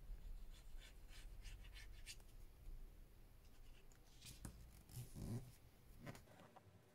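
Near silence with faint, scattered rustles and taps of paper card being handled: hands folding glued flaps of card over and pressing them down.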